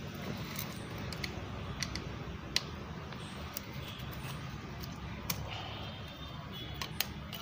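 Scattered light metallic clicks, about half a dozen and unevenly spaced, as a piston ring compressor is worked around a piston to squeeze its rings. A steady low hum runs underneath.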